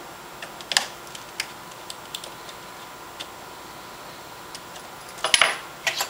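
Scattered light plastic clicks and taps as a Dell Vostro 1500 laptop's keyboard and casing are pressed and handled, with one sharper click a little under a second in and a louder burst of clatter about five seconds in.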